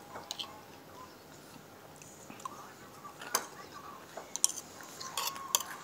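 Faint mouth sounds of someone chewing a mouthful of soup, with scattered small clicks and a sharper click about halfway in, then a quick run of clicks near the end.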